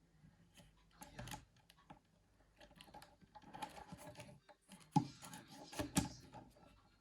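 Small plastic mobile-phone parts being handled and fitted together: scattered light clicks and taps, with two sharper clicks about five and six seconds in.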